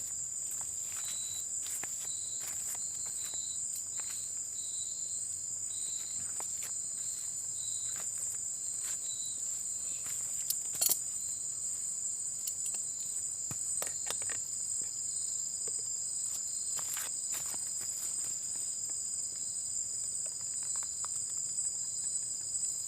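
Insects trilling steadily at a high pitch, with a second insect chirping in short regular pulses during the first nine seconds or so. Scattered light clicks and knocks, the sharpest about eleven seconds in.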